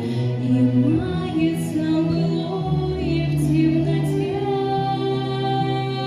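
A teenage girl singing a song over an instrumental backing track, with long held notes that slide between pitches.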